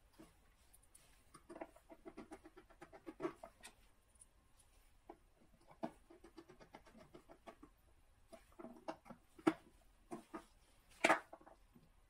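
Hands handling small electronic parts and hardware: scattered light clicks, taps and rustling, with two sharper clicks near the end.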